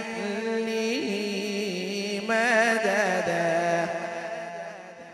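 A man's voice chanting Quran recitation (tilawat) through a microphone, holding long notes with wavering ornaments. The phrase weakens and fades away near the end.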